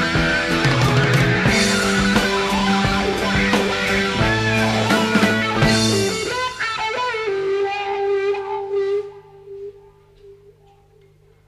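Live blues-rock band playing, with electric guitar, bass and drums, until about six seconds in, when the band drops out and the electric guitar carries on alone. It holds a bent, sustained note, then trails off into a few quiet, sparse notes near the end.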